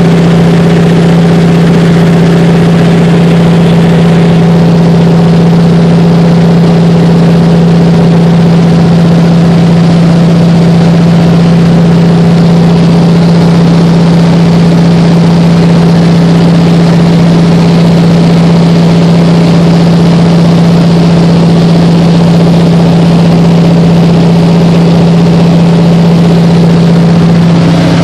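De Havilland Canada DHC-2 Beaver's nine-cylinder radial engine and propeller running steadily in cruise flight, heard loud from inside the cabin as a constant drone with a strong low hum.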